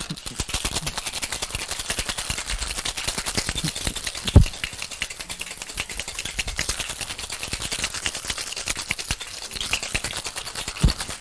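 Ice cubes rattling fast and hard inside a metal cocktail shaker being shaken to chill and dilute the drink. There are two louder knocks, one about four seconds in and one near the end.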